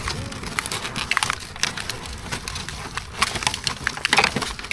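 Irregular crackling and clicking of a potted seedling in a thin plastic nursery pot being picked up and handled.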